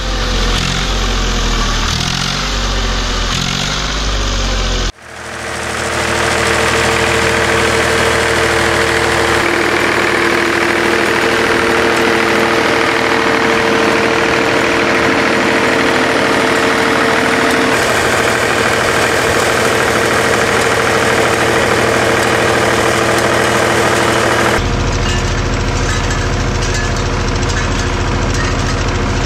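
Zetor 3511 tractor's three-cylinder diesel engine running steadily and evenly under light load as it pulls a potato planter. Before it, a few seconds of music cut off sharply about five seconds in.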